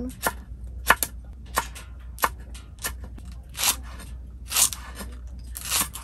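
Kitchen knife slicing chili peppers and green onion on an end-grain wooden cutting board: about eight slow, separate cuts, each a crisp knock of the blade on the wood. The last three cuts are longer and crunchier.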